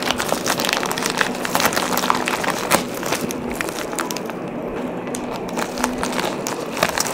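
Plastic courier mailer bag crinkling and tearing as it is pulled open by hand: irregular crackles and rustles.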